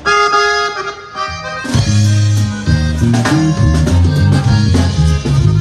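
Norteño band starting a song: an accordion plays a short intro alone, then about a second and a half in the bass and drums come in and the full band plays on.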